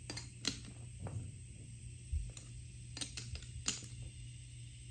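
A handful of sharp clicks and taps of a threaded metal air-fitting adapter and tools being handled while the adapter is tightened onto an air tool, over a steady low hum.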